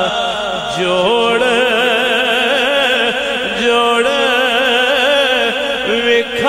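A male voice singing a Punjabi naat, unaccompanied. It moves between long held notes with a wavering vibrato and ornamented melodic runs.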